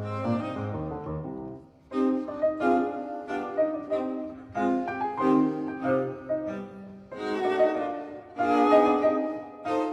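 Background music: bowed strings such as violin and cello with piano, playing in phrases with a brief pause about two seconds in.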